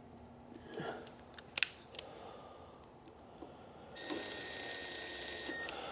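A small electric driver's motor whirring steadily for just under two seconds as it drives a carbide insert screw back into a helical planer cutterhead, cutting off abruptly. A few light metallic clicks come earlier as the insert is handled.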